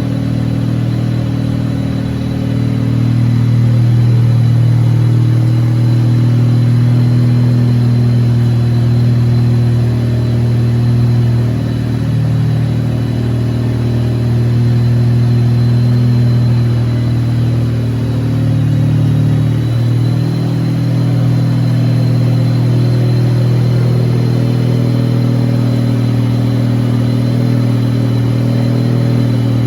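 Wankel rotary engine running steadily at a near-constant speed, with a few small dips and swells in level.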